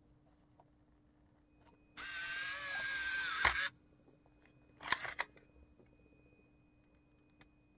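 Aiwa HD-S200 portable DAT recorder ejecting its tape: the transport motor whirs for about a second and a half, unloading the tape, and stops with a sharp clack as the cassette lid springs open. About a second later come a few quick plastic clicks as the DAT cassette is pulled out of the holder.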